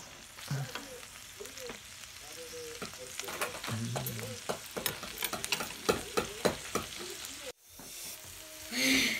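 Beef and duck slices sizzling on a Korean-barbecue grill pan, with metal tongs clicking and scraping on the pan as the pieces are turned. The clicks come in a quick run through the middle.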